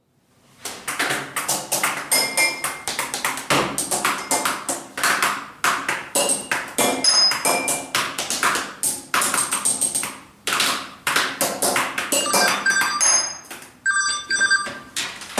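Fast, irregular tapping and clattering of small objects on a desktop, several knocks a second, some giving short metallic pings. Near the end a telephone rings briefly.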